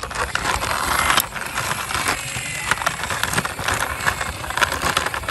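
Toy double-decker bus rolled by hand along a wall: its wheels rolling and scraping over the wall surface, with frequent small clicks and knocks.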